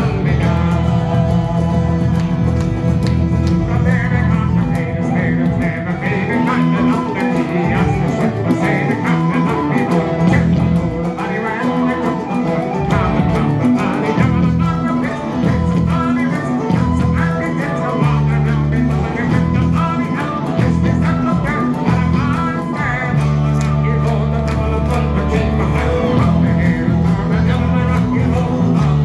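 Live Irish folk band playing at full tilt: fiddle, strummed acoustic guitars, bodhrán and electric bass guitar together.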